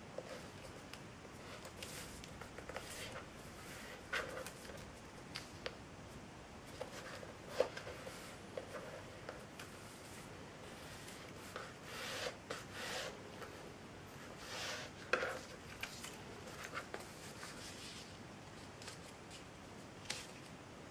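A strip of printer paper being folded and creased by hand on a tabletop: scattered rustles, fingers scraping along the folds and light taps, with the loudest bursts a little past a third of the way in and again past halfway.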